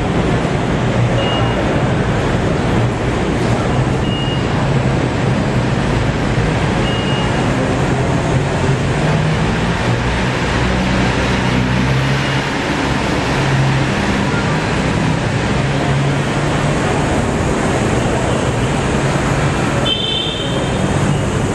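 Steady loud background noise with a low hum underneath, and a few faint short high tones now and then.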